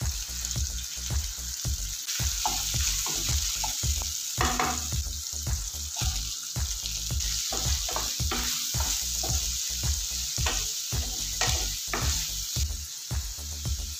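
Chicken pieces sizzling in hot oil in a nonstick frying pan, with a steady hiss, while a wooden spatula stirs and scrapes them in many short knocks. Diced onion is tipped into the pan partway through.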